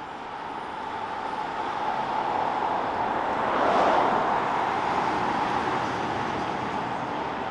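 REM Alstom Metropolis electric light-metro train passing on a test run: its running noise builds to a peak about four seconds in as it goes by, then fades as it moves away.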